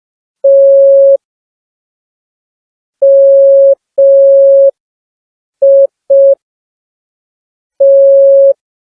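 Morse code beeps from a smartphone Morse code app: one steady mid-pitched tone keyed on and off in four long and two short beeps, with long, uneven gaps between them at a slow beginner's pace.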